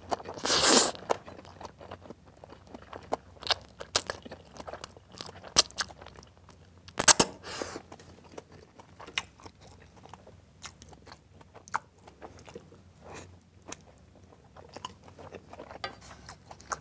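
Close-up eating sounds of a man with a mouthful of instant black-bean-sauce noodles (Chapagetti mixed with Buldak fire noodles): a loud slurp just under a second in, then wet chewing full of small clicks and smacks, with another loud burst about seven seconds in.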